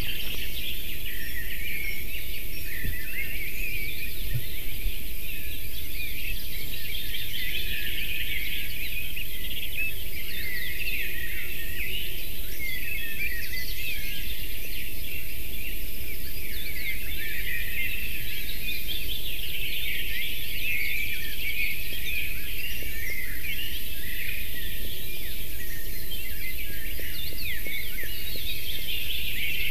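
Many small songbirds singing at once, a dense overlapping chorus of quick high chirps and trills, over a steady low background noise.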